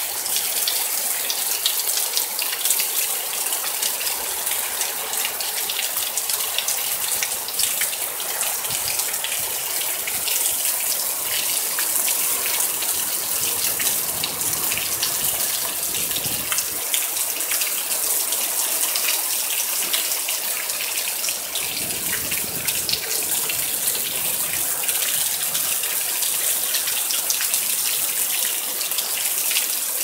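Heavy thunderstorm rain pouring down: a steady, dense hiss with many close drop hits. Two brief low rumbles come partway through.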